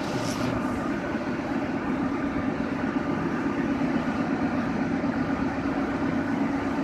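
Metro train standing at the platform with its doors open, giving off a steady low hum.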